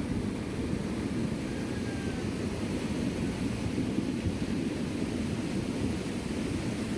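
Muddy floodwater rushing in a fast torrent, a steady deep rushing noise.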